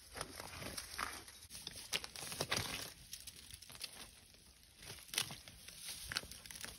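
Irregular rustling, scraping and sharp clicks from a man climbing a tree on a rope in a harness: boots scuffing the bark, rope and clipped hardware knocking as he pulls himself up.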